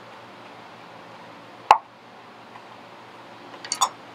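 Chef's knife knocking on a cutting board while fresh rosemary is chopped: one sharp knock a little under two seconds in, then a quick run of clicks near the end, over a faint steady hum.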